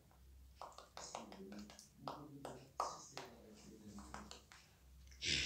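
Quiet, indistinct talking with a few soft taps or clicks.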